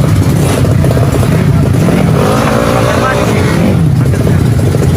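Tuned 155cc automatic scooter engine running loudly with a rapid pulsing buzz, and a voice heard over it in the middle.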